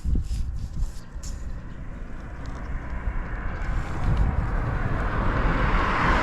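Honda Rebel 250's parallel-twin engine starting about the start and running steadily low. A broad rushing noise swells toward the end.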